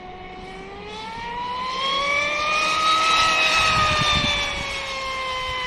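High-pitched whine of an RC boat's brushless motor (TP Power 4070 on 6S) running at speed. The pitch climbs and the sound grows louder to a peak about three seconds in, then eases off slightly near the end.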